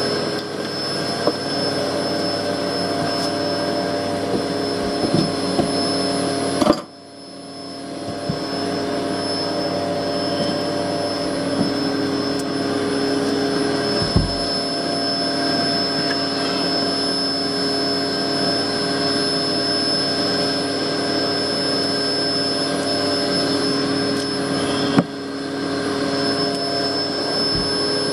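Vacuum running steadily as it hoovers up honeybees. About seven seconds in its sound drops off sharply and then builds back up over a couple of seconds, with a smaller dip near the end.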